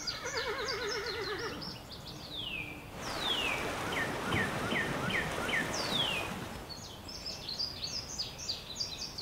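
A horse whinnies once at the start, a quavering call about a second and a half long, over birds chirping. From about three seconds a steady rush of flowing creek water comes in, with a bird repeating a short downward-sliding whistle several times.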